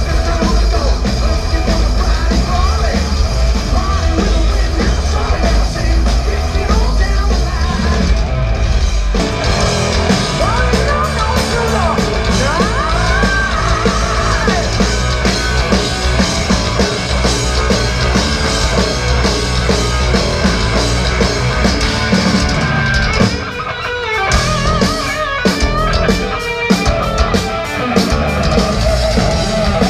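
Live rock band playing loud, with drum kit and guitars and a voice singing. The heavy bass thins out about nine seconds in.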